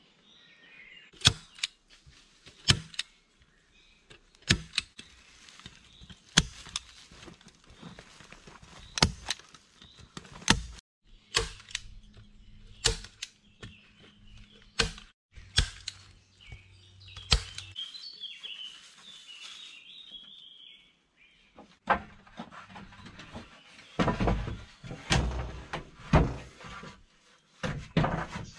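Sharp knocks of hand-tool work on wood, one every second or two at irregular intervals, with a run of heavier thuds near the end. A bird chirps at the start and again about two-thirds of the way through.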